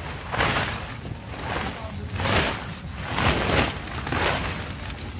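Wind buffeting the microphone, a rushing hiss that swells and fades in several surges over a steady low rumble.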